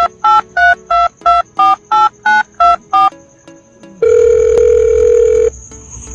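Telephone keypad tones: ten quick two-note beeps, about three a second, as when dialling a phone number. After a short pause comes one steady telephone tone lasting about a second and a half.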